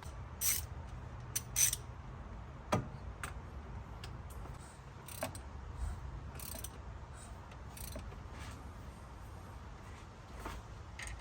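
Scattered, irregular metallic clicks and clinks of hand tools on the engine, over a low steady hum.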